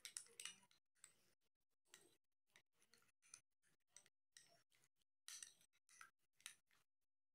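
Metal spoon stirring yoghurt and frozen raspberries in a glass bowl: faint, irregular clicks and scrapes of the spoon against the glass.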